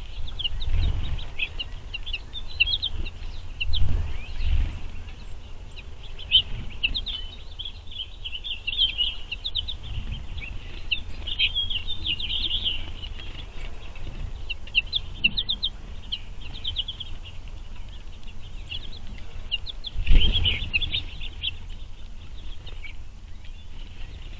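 A flock of finches chirping and twittering: many short, high calls overlapping almost without pause. A few low thumps break in, the loudest about 20 seconds in.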